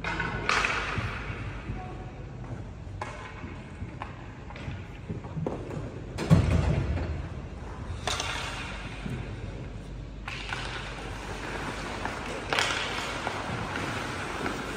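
Ice hockey play: skate blades scraping the ice and sticks clacking, with a loud, low thud about six seconds in.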